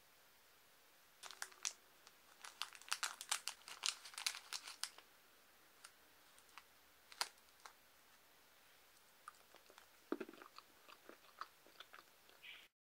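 Crinkly plastic candy wrapper being handled and opened, dense crinkling for the first few seconds, then a ramune candy tablet bitten and crunched from about ten seconds in. The sound cuts off sharply just before the end.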